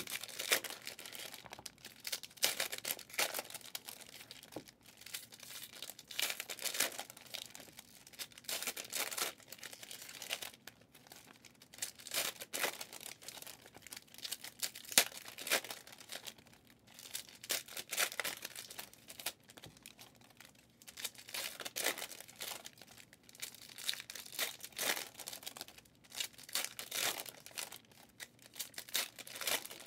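Foil trading-card pack wrappers being torn open and crinkled by hand, with the cards inside being handled, in irregular rustling bursts.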